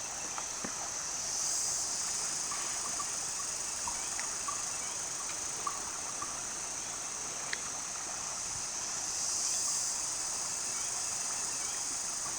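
Steady high-pitched drone of an insect chorus that swells twice, with a few faint ticks.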